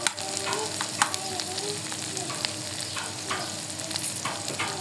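Onions frying and sizzling in a pan with a steady hiss, stirred with a utensil that knocks against the pan now and then.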